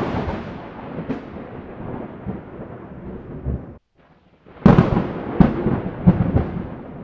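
Outro sound effect: a loud, noisy low rumble that cuts out briefly a little past halfway, then comes back with a sharp crack and two more cracks over the next second and a half, each trailing off into rumble.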